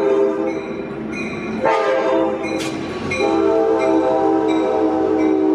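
Air horn of an Amtrak California F59PHI diesel locomotive sounding a chord in long blasts. One blast is under way at the start; a fresh one starts sharply about a second and a half in, and another just after three seconds runs on to the end.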